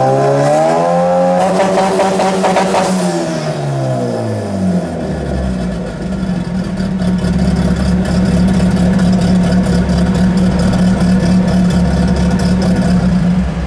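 Honda Civic engine running on a chassis dyno with the driven tyre spinning on the roller. The revs rise briefly, hold, then fall away over a few seconds and settle into steady running.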